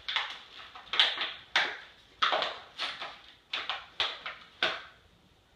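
Small furniture-assembly hardware rattling in a plastic hardware tray as it is picked through by hand, with about eight sharp clattering rattles.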